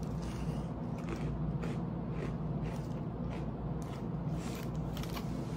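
Chewing a freeze-dried ice cream sandwich: soft, dry crunches about every half second, over a steady low hum.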